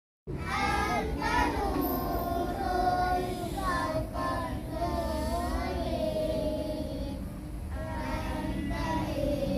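A group of children singing together in unison, with a brief cut to silence right at the start.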